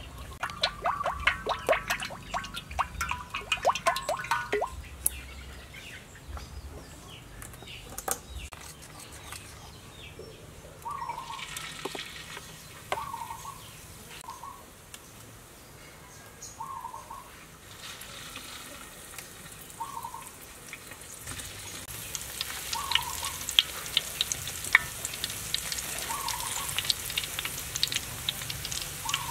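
Cooking oil glugging out of a plastic bottle into a wok for the first few seconds. Later, battered enoki mushrooms deep-frying in the hot oil, a crackling sizzle that builds and grows dense near the end. A bird calls every couple of seconds through the middle.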